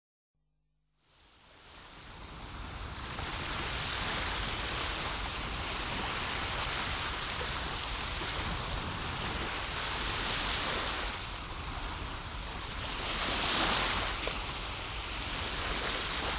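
Sound of ocean surf fading in from silence, a steady rush of breaking waves that swells and eases back every few seconds.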